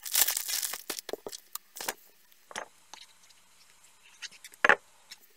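Crinkling of a clear plastic sleeve and rustling of vellum and card being handled, densest in the first second. Scattered light taps and rustles follow, and there is one sharp click about four and a half seconds in.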